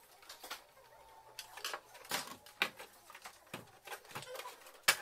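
Irregular small clicks, taps and rattles of a screwdriver and hands working on the plastic housing of a Eumig R2000 film projector as it is handled on a workbench, with two sharp knocks near the end.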